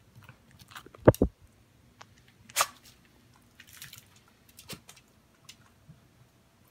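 Poodle's mouth noises, scattered wet clicks and crunches of licking and chewing. Two heavy thumps come about a second in, and a louder crunch follows a moment later.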